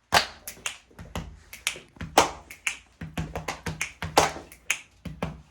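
Body percussion: sharp hand claps, finger snaps and slaps on the body, struck in an uneven, syncopated rhythm of about two to four hits a second.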